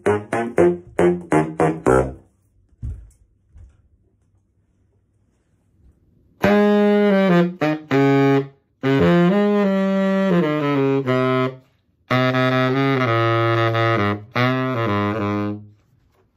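Solo baritone saxophone: a quick run of short, detached notes for about two seconds, then a pause broken by a couple of soft knocks. From about six seconds in come slower jazz phrases of longer held notes in three spans, with short breaks between them.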